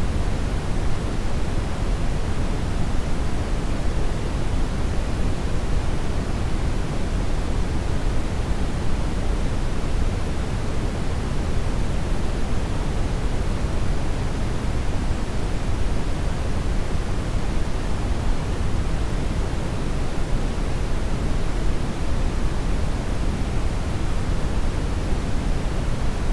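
Steady synthesized noise, an even rushing hiss that never changes. Its weight sits in the low end and thins out toward the highs.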